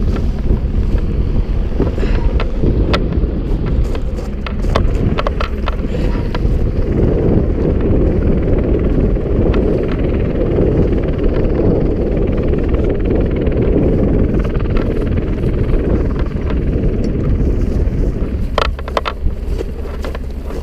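Steady wind rumble buffeting the body-worn camera's microphone, with scattered small clicks and rustles from gloved hands handling a rope cargo net.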